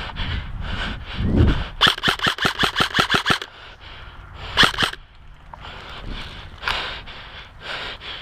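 Airsoft rifle firing a fast full-auto burst of about a dozen shots, then a short two-shot burst about a second later.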